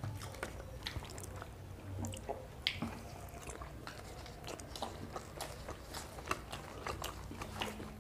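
Chewing and biting sounds of people eating paratha with chicken curry by hand, with many short, scattered wet smacks and clicks.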